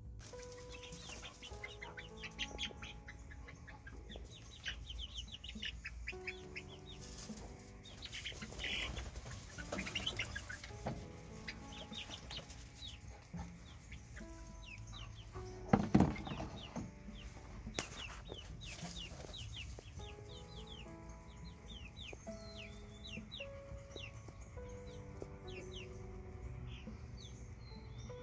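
Young pullets peeping and clucking, over soft background music. A single sharp knock about halfway through.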